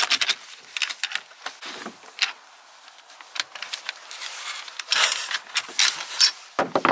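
Irregular clicks, scrapes and rattles of a bicycle saddle's rails being worked and forced in the seatpost clamp to get the saddle off, with a denser run of clicks and scraping about five to six seconds in.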